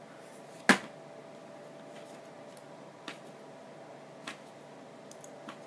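Hand tools and parts handled on a tabletop: one sharp knock less than a second in, then two fainter clicks, over a faint steady hum.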